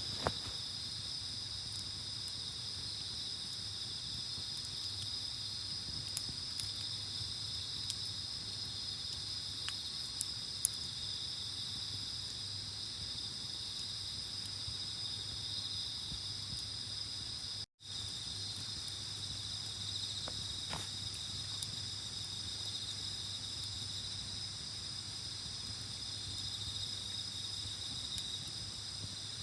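Steady, unbroken high chirring of night insects, with a few sharp crackles and pops from a burning campfire.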